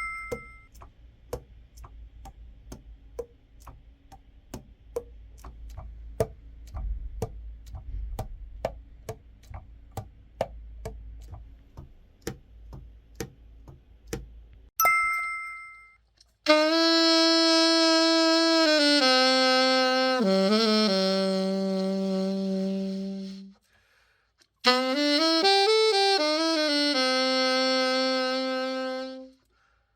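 A run of light clicks and taps over a low hum, then a two-tone chime about halfway through. After that a Selmer Reference 54 alto saxophone is play-tested following its repair and setup, in two slow phrases of long held notes.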